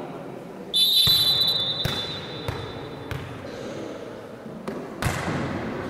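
Referee's whistle blown in one long blast of about two seconds, with a few sharp thuds of a volleyball being hit and bouncing on a gym floor.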